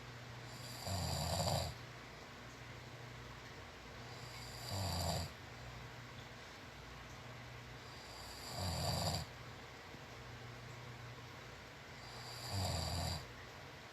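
A sleeping person snoring loudly, four snores about four seconds apart, each lasting under a second.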